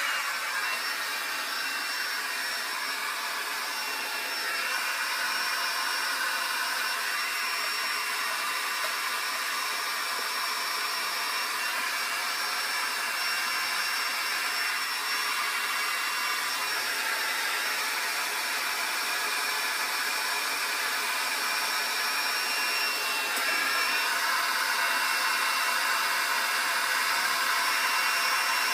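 Handheld hair dryer running steadily, a rush of air with a thin high whine over it. The sound shifts slightly in level and tone as the dryer is moved about the head.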